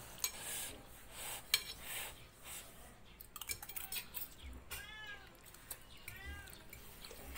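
Spoons and forks clinking against plates, and later on a cat meowing twice, each a short call that rises and falls, about a second apart.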